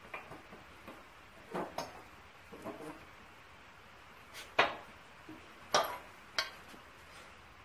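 Metal-on-metal clanks and knocks as a cast-iron engine part is lifted off the steel plates of a press and handled. A few lighter knocks come early, then three sharp, loud clanks in the second half.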